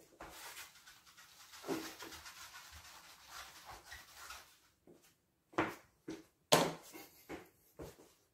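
Quiet scratching and rubbing for about four and a half seconds, then five short knocks or taps.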